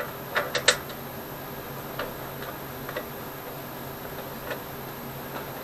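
Sharp small metal clicks and taps from a hand screwdriver and screw being worked into a lawn tractor's painted metal dash. There is a quick cluster in the first second, then single faint ticks about once a second. A steady low hum runs underneath.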